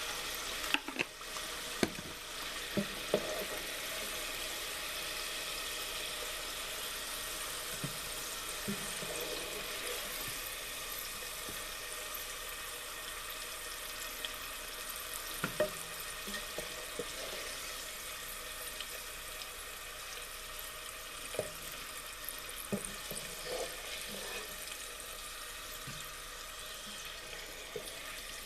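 Steady sizzling of food frying, with scattered small pops and clicks.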